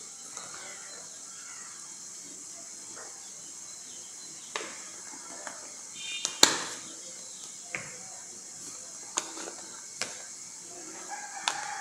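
Chicken and potatoes frying in oil in a lidded pot: a steady sizzling hiss with sharp pops and crackles every second or so, the loudest about six and a half seconds in.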